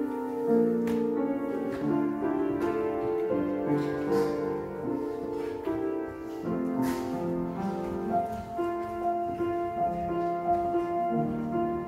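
Slow instrumental keyboard music: held chords that change about once a second, with no singing.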